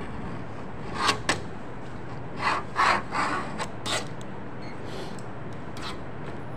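A hand tool scraping and rubbing across sheet material on a work table, in about eight short strokes, the loudest in a quick run in the middle. A steady low hum runs underneath.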